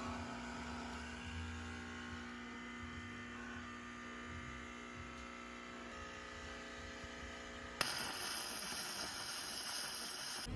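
Steady low humming tones, then about eight seconds in a sudden switch to a louder, even hiss from a coffee machine making café au lait.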